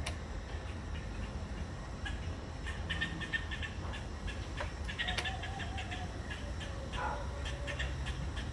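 Animal calls: clusters of short high chirps and a few wavering calls over a steady low rumble.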